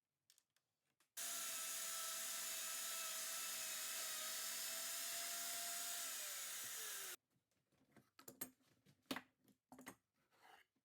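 Hand router running with a steady whine for about six seconds. Its pitch falls near the end, then the sound stops abruptly. A few short knocks follow.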